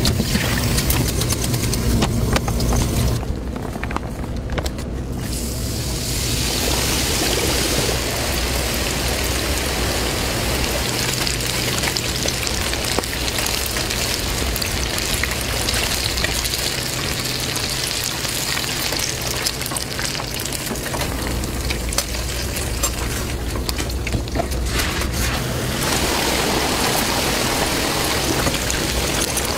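Hot oil sizzling and bubbling in a commercial deep fryer as food fries, a steady hiss from about six seconds in, over a low steady hum.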